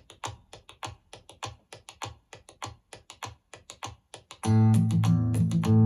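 Music: a sparse rhythmic pattern of short percussive hits, about five a second, then the full track comes in with heavy bass and sustained notes about four and a half seconds in.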